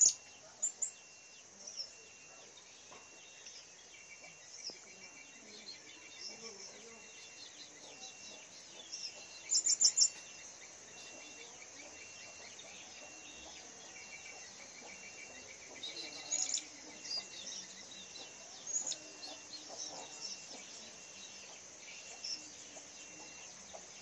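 Blue-crowned hanging parrots giving short, shrill, high-pitched chirps in scattered bursts, with a quick run of four louder chirps about ten seconds in.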